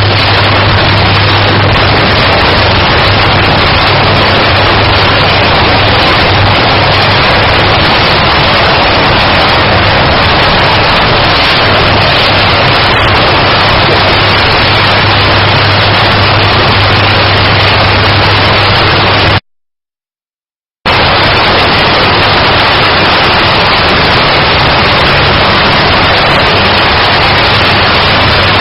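Electric arc furnace arcing under full power: a loud, steady crackling roar over a strong low electrical hum. The sound cuts out completely for about a second and a half about two-thirds of the way through, then returns unchanged.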